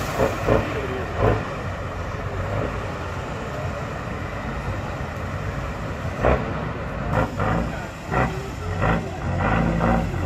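Diesel engine of an off-road trial truck working under load, blowing black smoke, its rumble growing louder near the end.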